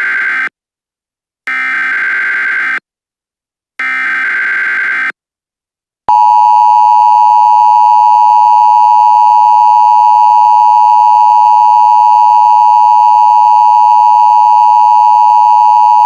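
Emergency Alert System alert opening: three short bursts of SAME header data tones, then, about six seconds in, a loud steady EAS attention tone. Together they signal that a new emergency message is about to be read.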